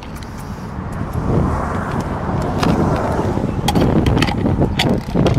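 A metal spoon clicks a few times against a tin can and a plastic box while dog food is scooped in, near the end. Under it, a low rumbling noise swells about a second in and stays loud.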